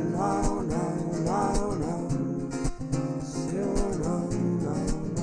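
Music: a man singing a gliding melody over a strummed acoustic guitar.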